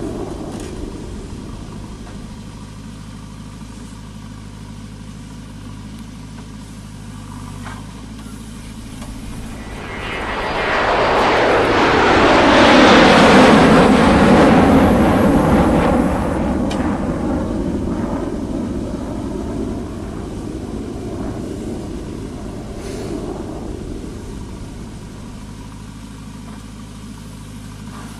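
JCB 3DX backhoe loader's diesel engine running steadily, then swelling loudly for several seconds about a third of the way in as the backhoe arm digs into the earth under hydraulic load, before settling back to its steady run.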